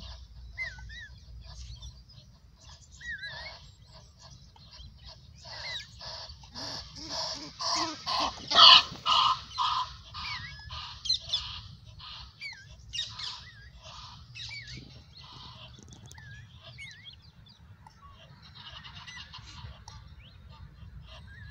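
Geese honking in a rapid run of repeated calls that builds to its loudest about eight or nine seconds in, then fades, with a softer burst of calls near the end. A small bird chirps now and then.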